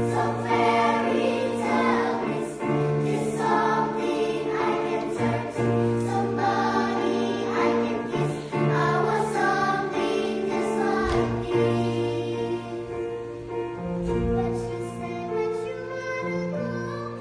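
Choir singing in harmony, long held chords shifting every second or two over a low bass line.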